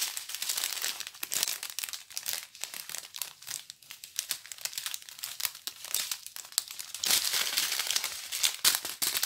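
Strips of small plastic bags holding round diamond-painting drills crinkling as they are handled. The crackling gets louder for a second or so about seven seconds in.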